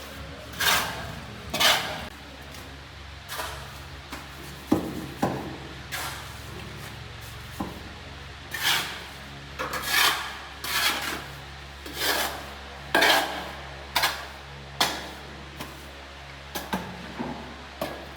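Repeated rasping scrapes, about one a second at an uneven pace, as something is worked against a rough surface.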